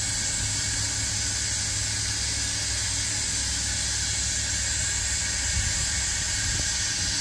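Steady hiss of steam from a fired 20-inch vertical fire-tube steam boiler under pressure, with a low, even hum underneath. Nothing starts or stops.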